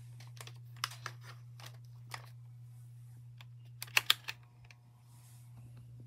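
Plastic clicks and knocks as a Duracraft DT-700U table fan is handled and turned around. A few scattered clicks come in the first two seconds, then a quick, louder run of clicks about four seconds in. A steady low hum runs underneath.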